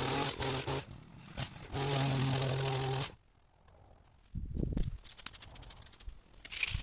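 A power trimmer's motor runs in short bursts, then cuts off. After a brief gap come irregular rustling and scraping of cut vegetation, like cuttings being raked up.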